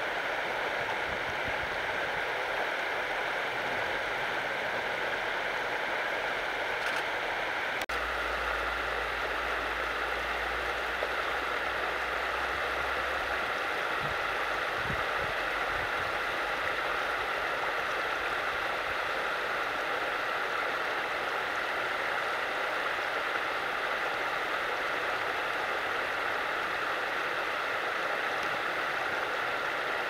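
Steady rushing of a stream.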